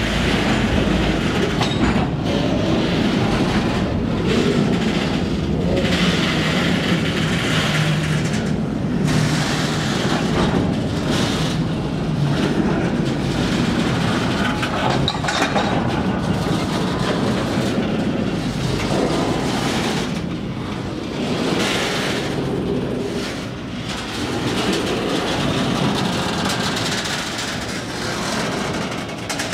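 Freight train of loaded container flatcars rolling past close by: a steady rumble of steel wheels on the rails with a clickety-clack, the noise dipping briefly every couple of seconds as car after car goes by.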